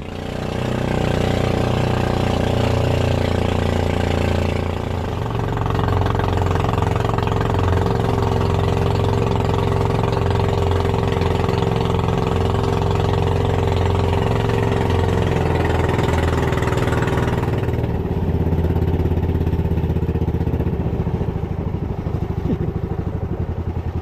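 An engine running steadily close by. It comes up loud at the start and eases slightly about five seconds in.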